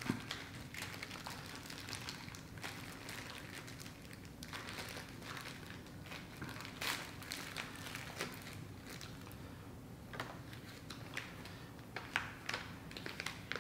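Paper rustling and crinkling as a small folded instruction leaflet is handled and opened, with scattered light clicks and taps, over a faint steady room hum.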